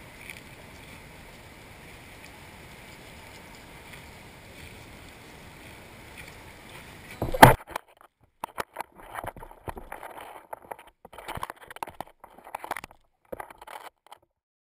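Steady wash of small waves and wind at a pebble shoreline, then a single sharp knock about seven seconds in. After it come scattered irregular crunching and scuffing sounds of a dog walking on the pebbles close by.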